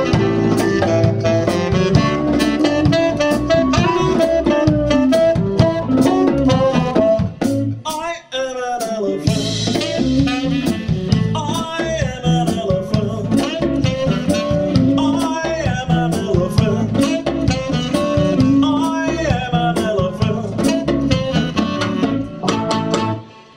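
A live blues band playing, with saxophone, electric guitar, bass and drum kit. The music stops suddenly on a final hit near the end.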